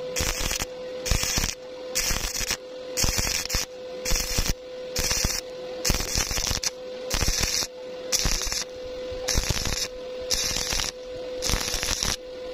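Stick (arc) welding on thin galvanized square tube, the arc crackling and sputtering in short bursts about twice a second with brief breaks between them. This is the on-off stitch method used on thin metal, where the arc is struck, run briefly and broken again. A steady hum runs underneath.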